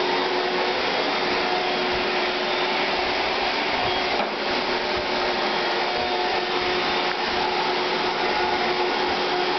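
Black & Decker Dustbuster handheld vacuum running steadily, an even whirring hum with a steady whine in it.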